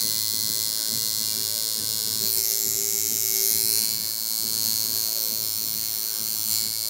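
Coil tattoo machine buzzing steadily as its needle runs along the outline on skin.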